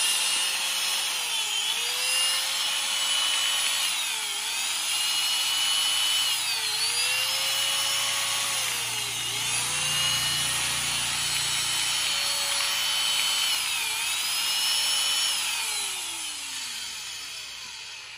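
A 100 V Japanese-market angle grinder running free with no load, its motor whine high and steady. The speed sags briefly and picks back up every couple of seconds, and near the end the motor winds down, the whine falling away to a stop.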